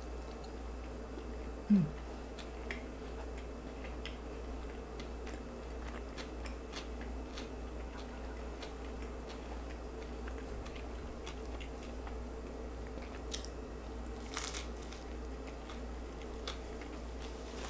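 Close-miked chewing of a soft flour-tortilla mahi mahi taco: a bite, then wet mouth clicks and soft crunches scattered throughout, over a steady low hum. A brief voiced sound about two seconds in is the loudest moment.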